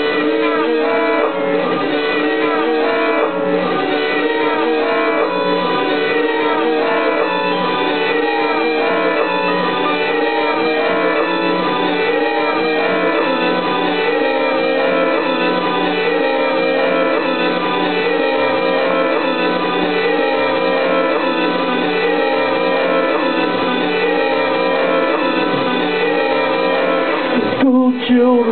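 Electric guitar playing: layered, sustained notes with moving lines over a steady held drone, cutting out briefly near the end.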